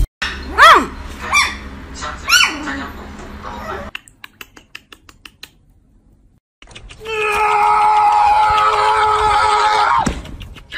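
A small toy poodle puppy yapping: three short, high yips that rise and fall in pitch in the first few seconds. Later a loud, steady, high-pitched sound of several held tones lasts about three seconds and cuts off suddenly.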